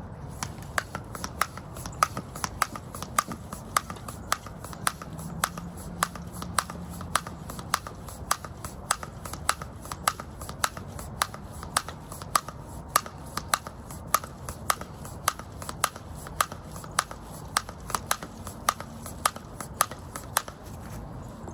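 Tyre pump being worked to inflate a new inner tube in a fat e-bike tyre. It gives a regular run of sharp clicks about twice a second.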